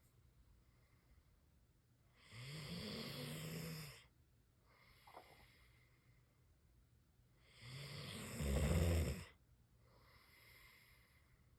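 Slow, gentle snoring: two long snores about five and a half seconds apart, each a low pitched drone with a breathy rush, the second louder toward its end. Fainter breaths come in between.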